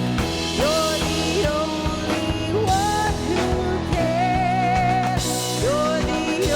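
Contemporary worship band music: a drum kit keeps a steady beat under sustained bass notes and a sliding melody line.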